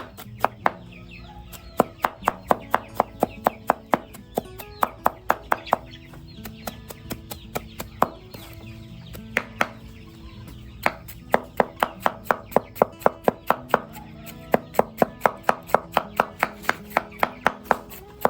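Knife chopping vegetables on a cutting board in a steady rhythm of about three strokes a second, slowing to scattered strokes midway before picking up again, with background music.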